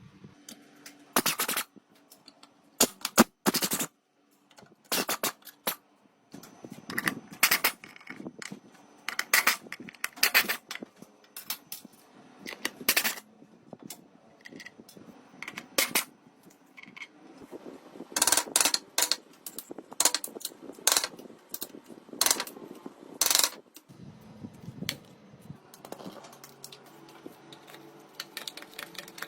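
Hand tools working on an old fire bellows: irregular sharp clicks, taps and knocks, some coming in quick clusters.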